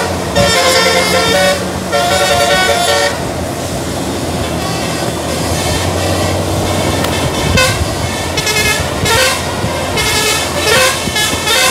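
A bus's telolet musical air horn (basuri style) plays a tune of quick stepped notes, stops for a few seconds while the bus engine runs low underneath, then starts again about halfway through, with faster note changes near the end.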